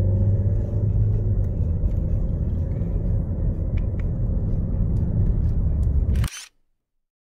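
Steady low rumble of road and engine noise inside a moving car's cabin, which cuts off suddenly near the end.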